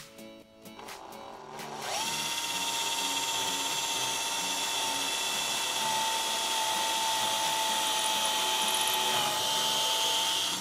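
Electric drill spinning up about two seconds in and running at steady speed for roughly eight seconds, winding down at the end.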